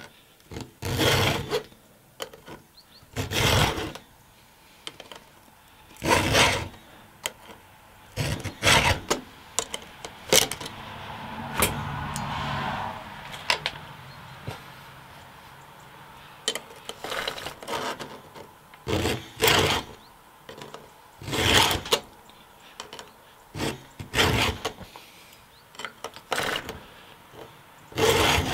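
Round chainsaw file in a file guide rasping across the cutters of a Stihl .325 saw chain held in a vise, in short forward strokes about one to three seconds apart, with a break of several seconds around the middle.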